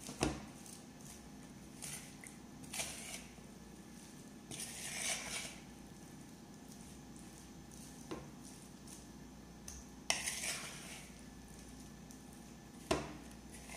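A fork clinking and scraping against a mixing bowl while shredded cabbage is tossed with flour and egg, with a rustle of the shredded cabbage. There are a few separate sharp clinks, the loudest right at the start, and a longer rustle about five seconds in.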